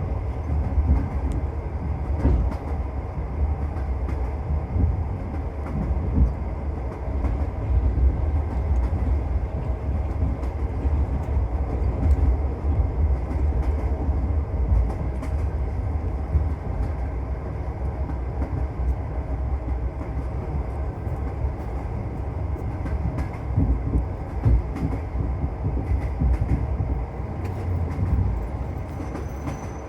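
Train wheels running on the rails, heard from inside a passenger carriage: a steady low rumble with frequent clicks and knocks from the rail joints and running gear.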